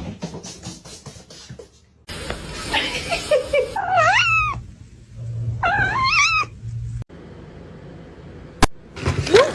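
Domestic cat meowing twice, each meow under a second long with a pitch that bends up and down.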